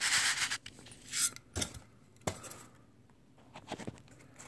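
Styrofoam packing rubbing and scraping against a boxed vacuum tube and cardboard as it is twisted off, in short bursts at the start and about a second in, with two sharp clicks, then mostly quiet.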